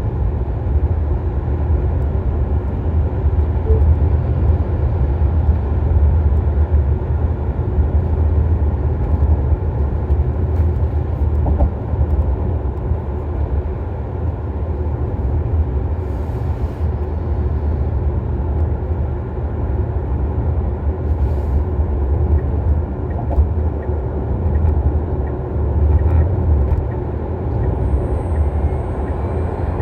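Steady low tyre and road rumble inside a Tesla Model Y's cabin at speed. Near the end a thin, high-pitched whine from the rear electric motor sets in and rises in pitch as the car accelerates, a whine the owner finds unusually loud for a nearly new car.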